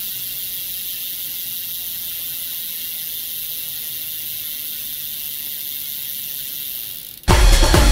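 Bicycle drivetrain turning: the chain runs over the rear sprocket and through the derailleur chain pusher's pulleys with a steady, even hiss and whir. Electronic music comes in suddenly near the end.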